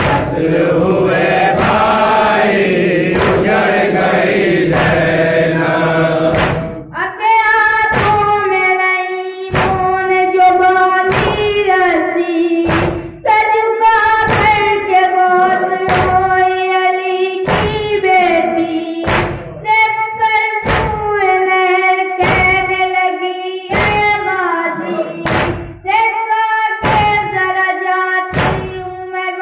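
A noha, a Shia lament: a group of voices chanting together, then from about seven seconds in a single young voice singing the verse. Under it run steady rhythmic thumps of chest-beating (matam), a little more than one a second.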